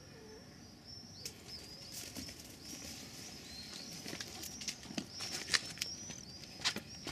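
Small birds chirping in repeated short, arched high notes, with leaves and stems rustling and snapping in sharp clicks from about a second in as someone pushes through garden plants; the rustling is loudest near the end.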